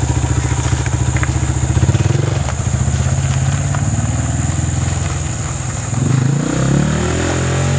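Small dirt bike engine running at low revs as it rides off, a little louder about two seconds in, then rising in pitch as it revs up near the end.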